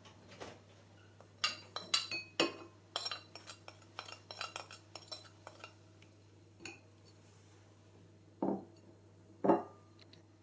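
Spoons and small dishes clinking as spice powders are tipped into a bowl of chicken: a quick run of light clinks and taps, then two heavier knocks near the end.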